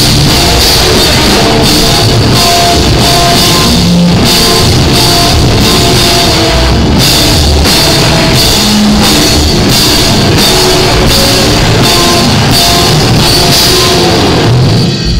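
A live heavy rock band playing loud, with distorted electric guitars and a pounding drum kit with repeated cymbal crashes.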